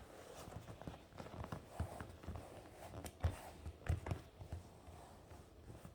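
Irregular soft thumps and taps of hands handling things, a dozen or so, the loudest two a little past the middle.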